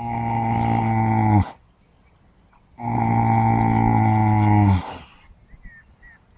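Horse snoring: two long, low-pitched snores a few seconds apart, each a steady drone that drops slightly in pitch just before it stops.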